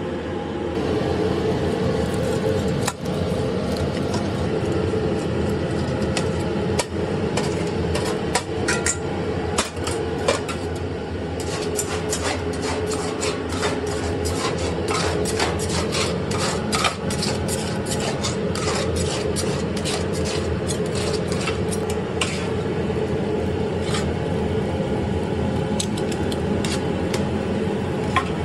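Rapid metallic clicking and scraping of a knife and tongs working chicken shawarma off a vertical rotisserie cone and across its metal drip tray. The strokes come thick and fast through the middle stretch over a steady mechanical hum.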